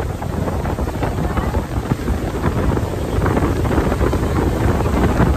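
Wind buffeting the microphone on a speedboat running fast over open water, with the boat's motor and rushing spray underneath as a steady, loud rumble.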